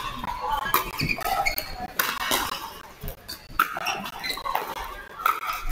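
Pickleball paddles hitting a hollow plastic ball during a rally, a string of sharp, irregular pops about a second apart.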